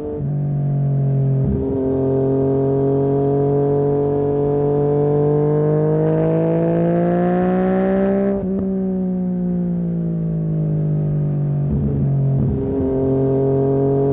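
2020 Yamaha MT-09's three-cylinder engine through a Barker full-system exhaust, heard onboard under way. Its note climbs steadily for several seconds, breaks off about eight seconds in, then sinks as the bike slows, with short breaks in the note near the start and near the end.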